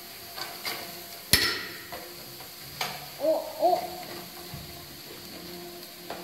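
A wooden spoon stirring ice-cream mix as it freezes with liquid nitrogen in a bowl, with a few knocks against the bowl, the sharpest about a second in. Around three and a half seconds in come two short hoot-like tones whose pitch rises and falls.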